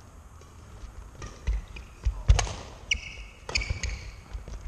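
Badminton rally: rackets striking the shuttlecock with sharp cracks, the loudest about two seconds in, among footfalls thudding on the wooden hall floor. Short high squeaks of court shoes come in during the second half.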